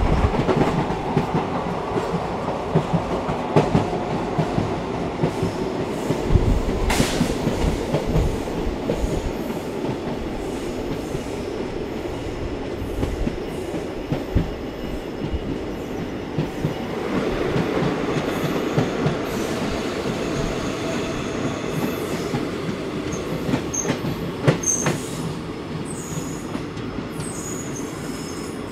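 ICF passenger coach wheels running slowly on the rails as the train brakes for a station halt, with a few sharp clicks over rail joints. Thin high wheel squeal comes in near the end.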